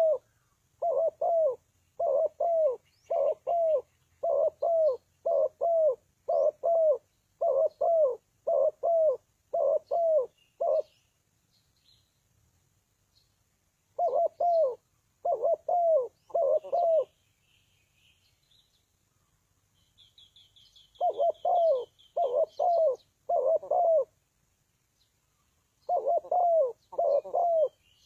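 Spotted dove cooing: repeated low coos, each dropping in pitch at its end, in a long run and then shorter phrases of about four notes, separated by pauses of a few seconds. A faint, rapid high twitter from a small bird comes in about two-thirds of the way through.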